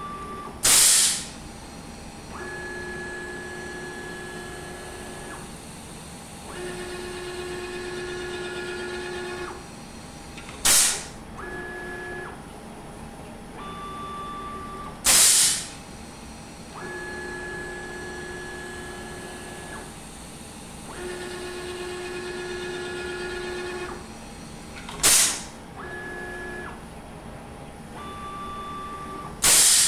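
A CNC router's automatic tool changer cycling through tool changes. The CNCDepot S30C ATC spindle's pneumatic drawbar releases five times with a short, loud hiss of air. Between the hisses the motors give a steady pitched whine during moves, the same sequence repeating about every fifteen seconds.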